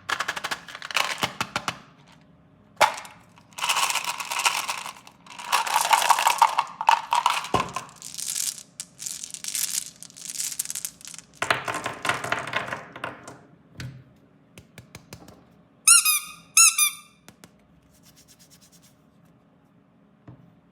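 Plastic sweet and toy packaging being handled and unwrapped, crinkling and rustling in several bursts, then two short squeaks about sixteen seconds in.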